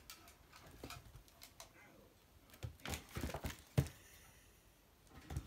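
Kitten's paws scrabbling and knocking against a cardboard box and a wooden floor: scattered clicks and scratches. There is a busier flurry about three seconds in that ends in a sharp knock.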